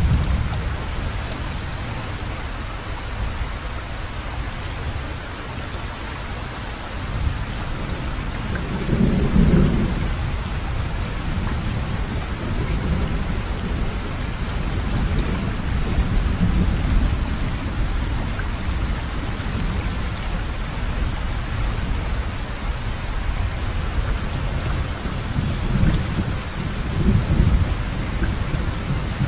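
Heavy rain falling steadily, with rolls of thunder rumbling through it several times; the loudest comes about nine seconds in, others around the middle and near the end.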